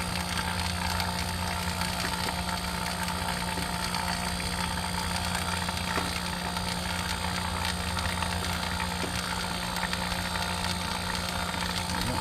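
A steady engine-like mechanical drone with a constant low hum and a hissy wash above it, unchanging throughout.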